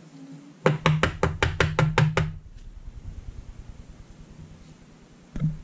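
A baseball card in a rigid plastic top loader is tapped against the tabletop to seat it: a quick run of about nine sharp knocks, roughly six a second, then one more knock near the end.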